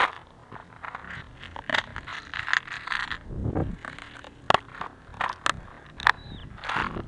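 Clear plastic tackle packet crinkling and crackling as it is handled, with many sharp clicks and rustles.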